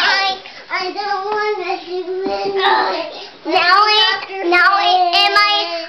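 A young child singing a song, drawing out long, steady notes with a brief break partway through.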